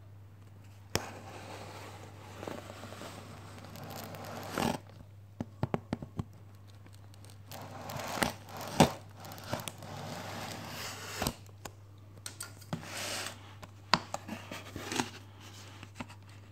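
Packing tape on a cardboard box being slit with a knife blade and torn open, then the box flaps pulled back: rasping tearing and scraping with a number of sharp clicks and knocks.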